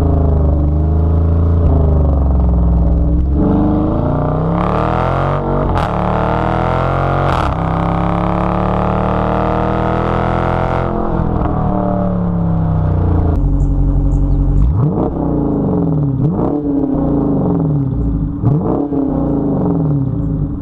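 Dodge 5.7-litre Hemi V8 exhaust under hard acceleration. The engine note climbs in pitch from about four seconds in and drops back near eleven seconds, then rises and falls several more times toward the end.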